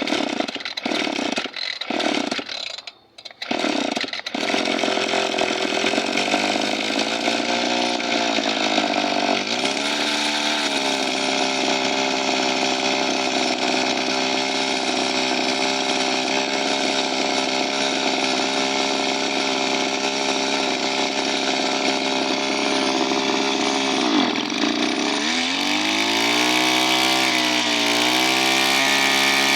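Small two-stroke engine starting with a few sputtering bursts, then catching about four seconds in and running steadily, its speed dipping and rising again a few times.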